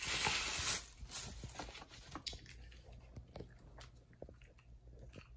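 Tissue paper rustling and crinkling, loudest in the first second, then scattered small clicks and crackles as a small jewellery box is handled and opened.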